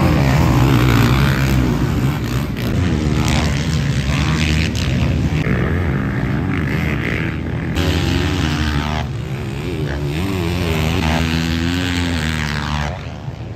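Several motocross bikes racing, their engines revving up and falling back again and again through the gears.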